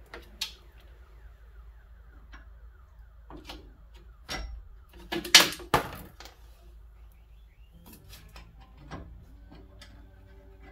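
Tools and metal parts knocking and clinking while a new steering part is fitted into place, with a louder scraping clatter about five seconds in.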